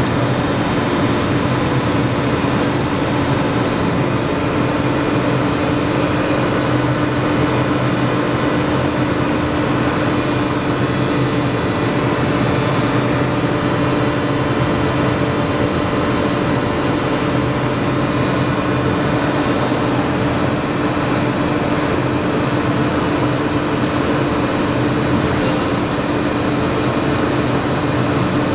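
Heller LFS 240 CNC plano milling machine running under power: a steady, loud machine hum with a few held tones that does not change.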